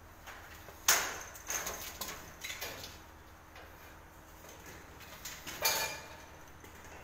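A kitten rolling and kicking on the slatted floor of a wire pet cage: a handful of sharp knocks and rattles, the loudest about a second in and another late on.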